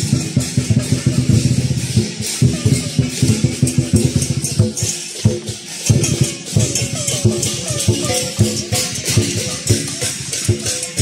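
Chinese lion dance percussion playing: a large drum beaten in fast, dense strokes, with clashing cymbals and ringing gongs.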